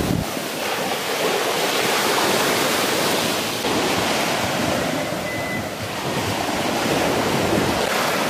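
Surf washing up on a sandy beach: a steady rushing of small waves that swells and eases every few seconds.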